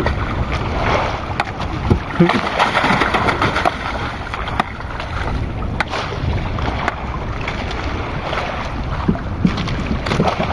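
Wind buffeting the microphone over sea water sloshing against a small wooden outrigger boat, with scattered light knocks and clicks.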